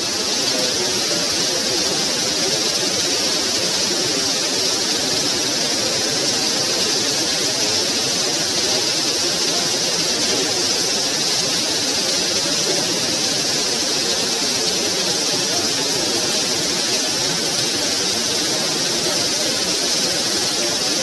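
Heavy rain pouring onto a concrete surface, a steady hiss of splashing drops.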